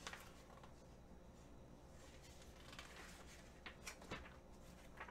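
Near silence: room tone with a faint steady low hum and a few faint brief ticks or rustles in the second half.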